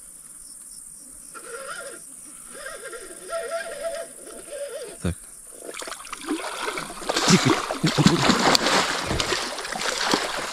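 A small wels catfish thrashing at the surface beside the boat and in the landing net, with loud, irregular splashes from about seven seconds in. Before that an insect buzzes with a wavering pitch over a steady high insect chirr.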